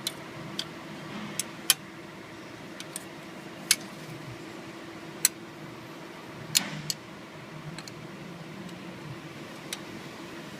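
Irregular sharp metal clicks and clinks of hand tools, a ratchet and socket working on the engine's bolts, about ten over a few seconds, over a steady low hum.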